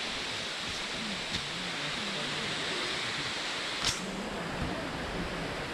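Steady rush of flowing water from the stream below the forest trail. A few footsteps on the dirt path sound through it, with one sharper crack about four seconds in.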